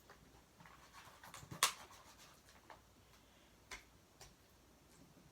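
Runny, freshly activated slime being mixed and kneaded by hand in a bowl: a few faint sticky clicks and squelches, the loudest about one and a half seconds in.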